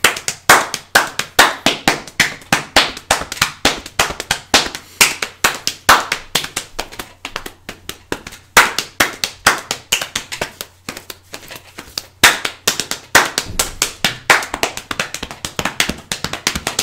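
Hambone body percussion: hands slapping and patting the thighs and chest and clapping, several sharp strikes a second in a fast, unbroken rhythm.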